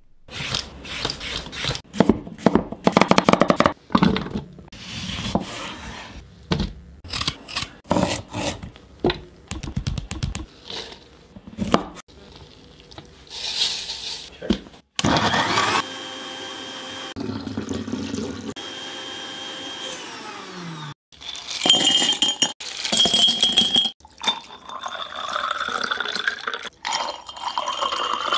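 Kitchen sounds from a juice recipe: a run of sharp knocks and crunches as ingredients are prepared, sugar pouring into a blender jar, and the blender running steadily for about six seconds. Near the end, juice pours into a glass, its pitch rising as the glass fills.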